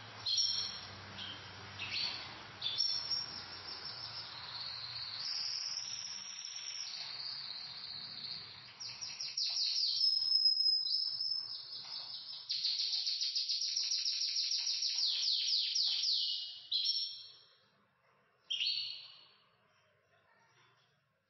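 Pet canaries singing: high chirps and fast trills. A long run of rapidly repeated notes comes in the middle. The song breaks off, and one short phrase follows near the end.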